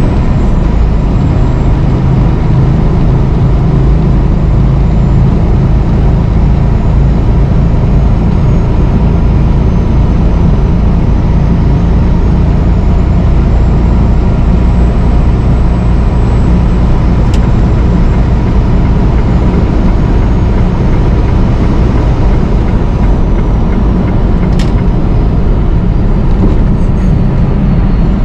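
Semi-truck's diesel engine droning steadily with tyre and road noise, heard inside the cab while cruising at highway speed. Two brief clicks, about seventeen seconds in and again about seven seconds later.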